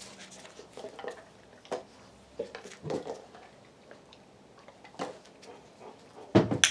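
A dog working with a bottle: scattered light taps and knocks, then a louder clatter near the end.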